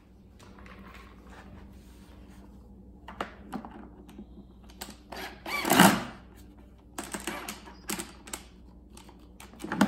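Irregular clicks and knocks of hard plastic vacuum parts being handled and fitted back together, with one louder knock about six seconds in.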